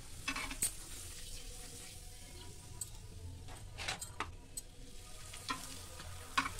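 Potato papads frying in hot oil in a non-stick kadhai, a steady sizzle, with a number of short clicks from metal tongs working in the pan.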